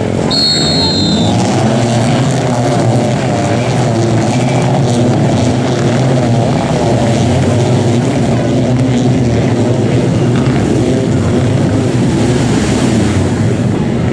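Several stand-up racing jet skis running together, their engines revving up and down in overlapping pitches as they accelerate away from the beach at a race start. A short high tone sounds briefly at the very start.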